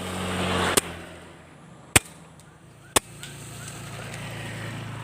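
Three sharp cracks about a second apart, which in this bird-hunting setting are likely air rifle shots, over a steady low engine hum that swells and fades.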